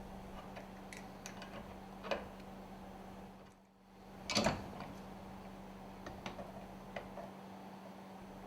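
Faint, scattered clicks and taps of small metal valve parts being handled and fitted together while a lubricator valve is assembled, over a low steady hum. Two taps are louder, about two seconds in and just after a brief dropout near the middle.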